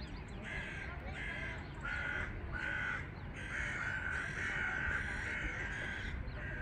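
A bird calling in a series of short calls: four separate calls over the first three seconds, then a longer, nearly unbroken stretch of calling, and one more call at the end.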